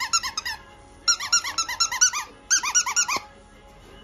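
Plush squeaky dog toy squeezed rapidly in three bursts, about eight squeaks a second, each squeak a short rise and fall in pitch.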